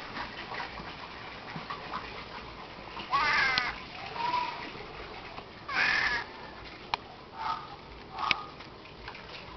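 Two loud, harsh animal calls about two and a half seconds apart, each about half a second long, followed by fainter short calls and a single sharp click.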